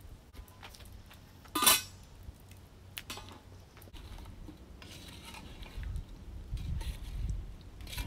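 Wooden spoon stirring whole plums and sugar in a metal pot, with one sharp knock of the spoon against the pot about a second and a half in and a few lighter clicks a second later. A low rumble comes up in the second half.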